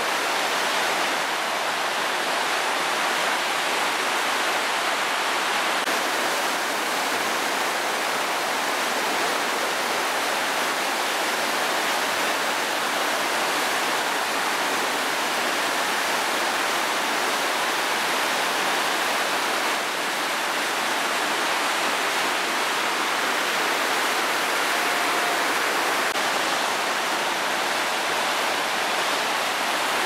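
Steady rush of water from a cascade on the Köprü River: an even, unbroken noise of water pouring over rocks.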